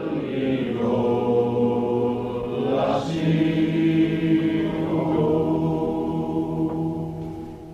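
Chant-like choral singing: voices holding long notes together, the chord shifting about three seconds in and again about five seconds in, then fading near the end.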